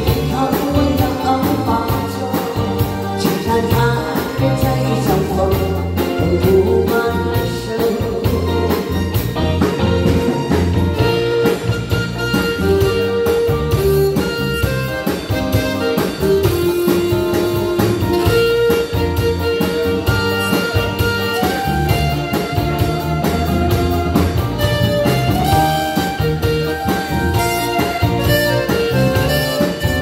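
Live band playing an instrumental passage: drum kit, electric guitar and keyboard, with a lead melody of long held notes.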